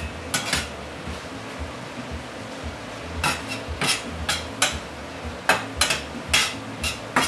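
A spatula scraping and knocking against a frying pan while ground beef and onions are stirred: about a dozen short, irregular strokes, two near the start and the rest from about three seconds in.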